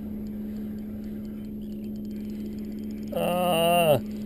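Steady low hum of the boat's idling engine, with faint regular ticks from the spinning reel being cranked while a hooked sea bass is fought. About three seconds in, a man lets out a loud, drawn-out vocal exclamation for just under a second, falling in pitch at the end.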